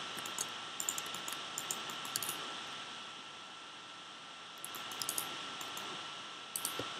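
Light clicking of a computer keyboard and mouse in a few short quick runs, over a steady hiss and a faint constant high whine.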